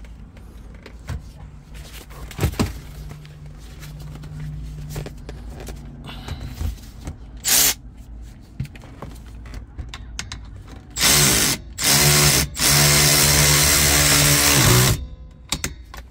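Power drill running in short bursts, then steadily for about two seconds, its motor pitch rising as it spins up, with a brief burst earlier on.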